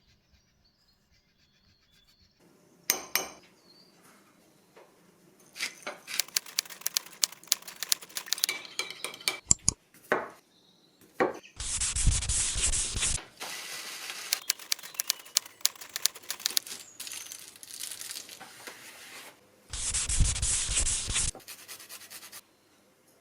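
Kitchen food-preparation sounds: utensils and dishes clinking, tapping and scraping, with two loud steady rushing bursts of about a second and a half each, one near the middle and one near the end.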